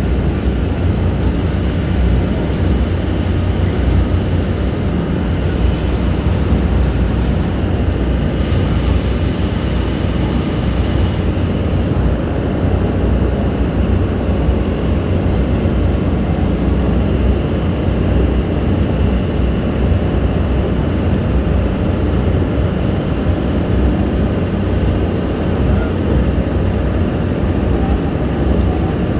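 Amphibious duck boat's engine running steadily under way, a loud low drone with a faint steady whine above it. A brief hiss rises over it about nine seconds in.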